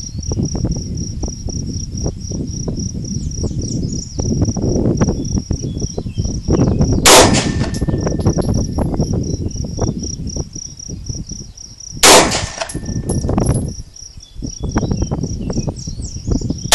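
Two 9mm pistol shots from a Ruger P95, about five seconds apart, each followed by a short metallic ring as the shot strikes a steel target. Insects chirp steadily in a high pulsing tone throughout.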